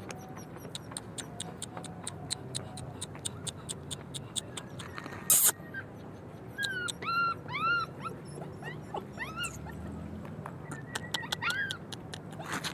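Puppy whimpering in short high cries that rise and fall, several in a row around the middle and a few more near the end. A steady run of sharp clicks goes on throughout, and a brief loud noisy burst comes just before the first cries.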